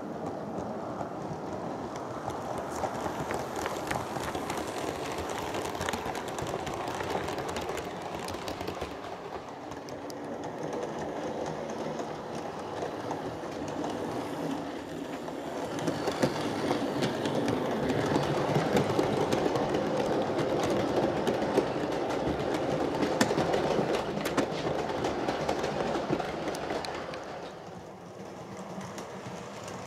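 Model train running along layout track: a steady rumble with wheels clicking over the rail joints. It grows louder about halfway through as the train passes close, then drops away near the end.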